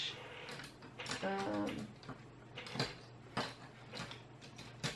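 A few light clicks and taps of small objects, watercolour supplies, being handled on a table. There is a brief hummed vocal sound about a second in.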